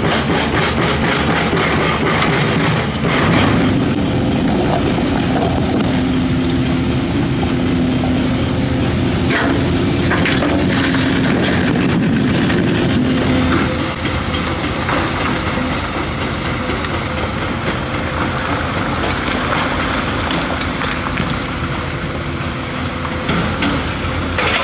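Large crawler hydraulic excavator working: the diesel engine runs hard under load with scattered clanks and knocks from the bucket and digging. About halfway through, the engine note eases and the sound drops a little.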